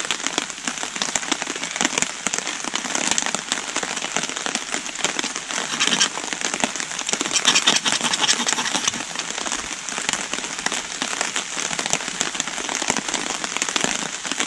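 Heavy rain falling steadily on the woodland around, a dense patter of drops, a little louder for a couple of seconds about halfway.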